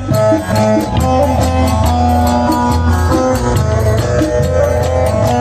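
Instrumental passage of Turkish folk music: a plucked string melody over a steady low beat, with quick, regular clicking percussion from kaşık (wooden spoons) and zil (finger cymbals).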